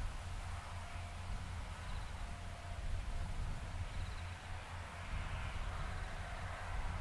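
Wind buffeting the microphone in a low, uneven rumble, with a few faint, short high chirps now and then.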